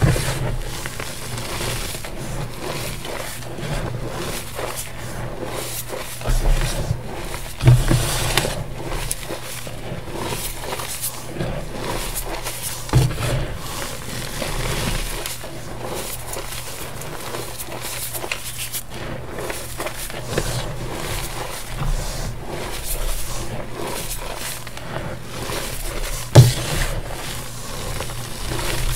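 Bare hands scooping, squeezing and crumbling loose powdered gym chalk: a steady soft hiss of shifting powder, broken by a few louder thuds, the loudest near the end.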